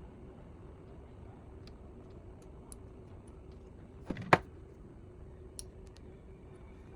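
A steady low hum with scattered faint ticks, broken by two sharp clicks in quick succession about four seconds in.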